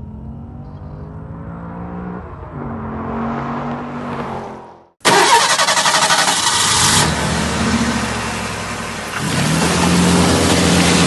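Car engine revving, its pitch and loudness rising for about five seconds, then cutting out abruptly and coming back at once much louder and harsher, running hard at high revs.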